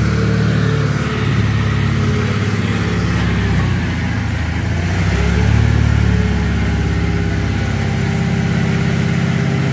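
The engine of a homemade radio-controlled mini crane runs steadily under load while the crane lifts a suspended trencher higher. Its note sags and recovers a few times, with a faint steady whine above it.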